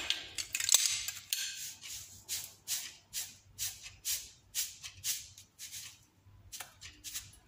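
Dry rattling from kitchen items shaken by hand, in a steady rhythm of about two shakes a second.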